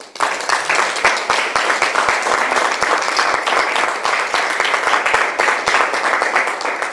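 Audience applauding: a burst of dense clapping that starts suddenly and fades out at the end.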